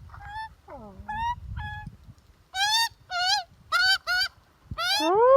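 Magpie calling: a series of short, nasal, honking calls that rise and fall in pitch, then a longer call starting near the end that rises and then falls.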